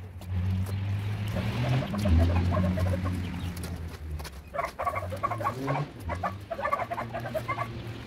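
Chickens clucking. A quick run of short repeated clucks comes in the second half, over a low steady hum.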